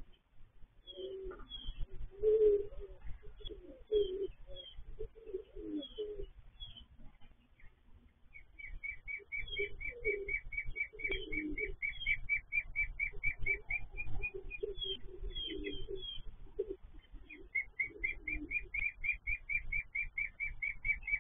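Domestic pigeons cooing in repeated low rolling phrases, in several bouts with short pauses. Over them another bird gives quick runs of high repeated chirps, about five a second, mostly in the second half.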